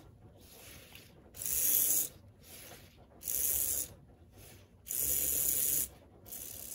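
Open-frame motor and gear drive of a Mehano-built HO-scale GP18 diesel mechanism running on the track after a tune-up. It makes a whir in short spurts that start and stop, the stronger ones about every second and a half with weaker ones between.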